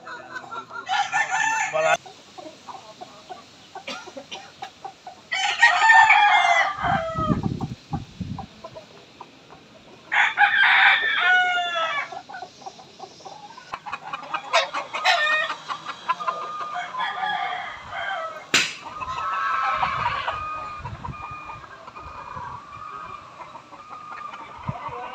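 Roosters crowing again and again: about five long crows a few seconds apart, with softer clucking calls between them.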